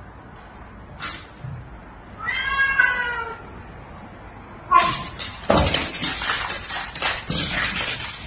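A cat meows once, about two and a half seconds in. About two seconds later a scuffle breaks out between a dog and the cat on a hard floor, with repeated thumps and scrabbling.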